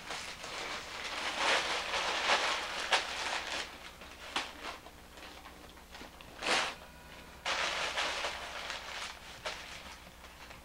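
Paper crinkling and rustling in irregular bursts as it is handled, over a faint steady low hum.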